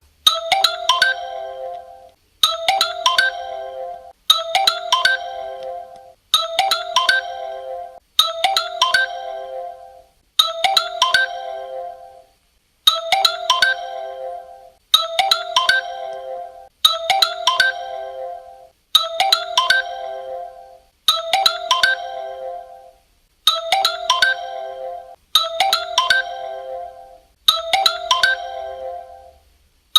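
Claro mobile phone ringtone looping: a short phrase of quick, bright mallet-like notes ending in a held chord, repeated about every two seconds.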